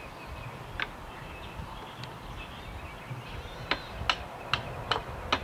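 A series of sharp clicks or taps, about two or three a second, starting a little past halfway, over a faint steady outdoor background.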